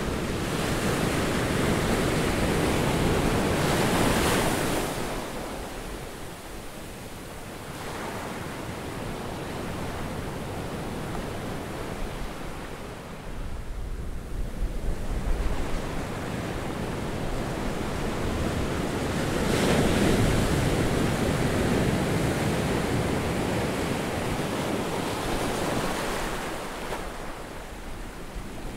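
Ocean surf breaking on a sandy beach, swelling loudly in the first few seconds and again about two-thirds of the way through, then falling back. Wind rumbles on the microphone.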